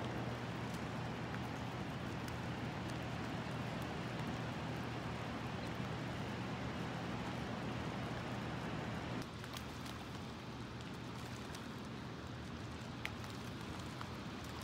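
Scattered small splashes of white bass striking bait at the surface, over a steady low hum that drops in level about nine seconds in.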